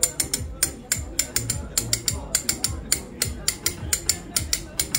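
A metal blade tapping rapidly against the neck of a clay testi kebab pot, about five sharp clicking taps a second, to crack the pot open.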